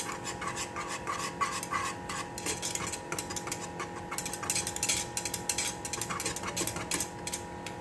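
Wire whisk stirring custard in a pan on the stove, its wires clicking and scraping against the pan in a quick, uneven run as the custard cooks and thickens, over a faint steady hum.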